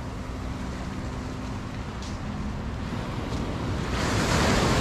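Ocean waves washing onto a sandy beach, with wind; the rush of surf swells louder near the end. A faint steady hum fades out about three seconds in.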